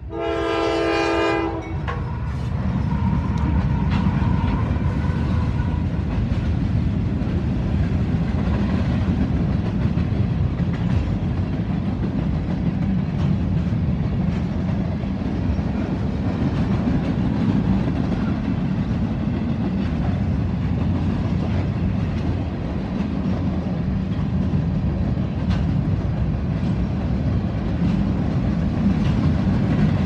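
Freight locomotive horn, on KCS AC44CW 4586, sounding one blast that ends about a second and a half in. Then the locomotives and a long manifest freight train of boxcars, covered hoppers and tank cars roll past with a steady heavy rumble of steel wheels on rail.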